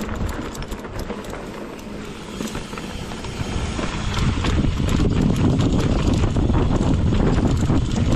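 Mountain bike riding down a rough dirt trail: tires and frame rattling and knocking over rocks and roots, with wind buffeting the microphone. It gets louder and rougher about four seconds in.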